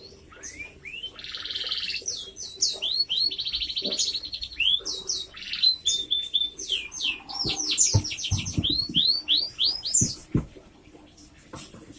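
Domestic canary singing a long, continuous song of quick chirps and rapid rolling trills, stopping about two seconds before the end.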